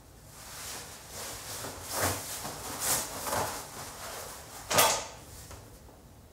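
Jacket fabric rustling as it is pulled off, in several swells. It ends with one short, sharp, loud sound near the end as the jacket is dropped or tossed down.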